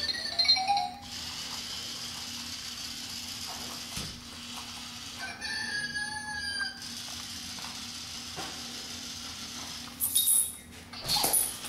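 Zhu Zhu Pets robotic toy hamster whirring steadily as it scoots along the floor, giving short electronic squeaks and chirps about half a second in and again around six seconds in, with louder squeaky bursts near the end.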